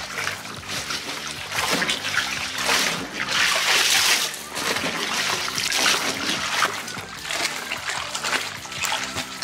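Bathwater splashing and streaming off a soaked dress as it is hauled up out of a bathtub and dunked back in, in waves, loudest about three to four seconds in. Background music plays underneath.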